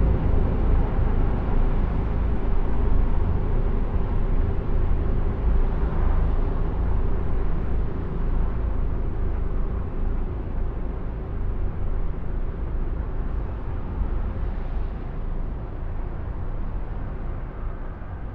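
A steady low rumble with a noisy hiss above it, slowly fading in level.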